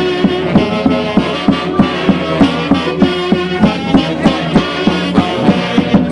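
Live band music with a steady fast drum beat, about three strokes a second, under sustained melody instruments.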